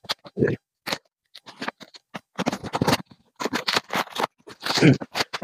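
Packing tape and plastic wrap being cut and pulled off a cardboard box: crinkling, tearing and scraping in irregular bursts.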